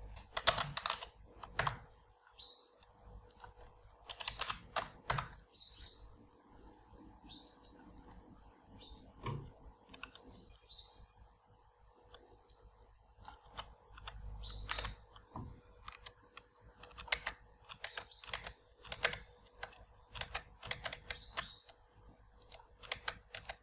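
Computer keyboard being typed on in short bursts of key clicks with pauses between them.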